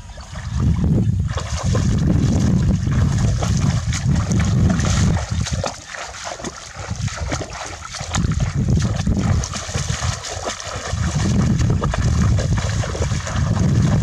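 Legs wading and splashing through shallow water, with wind gusting on the microphone as a low rumble that eases off for a while in the middle.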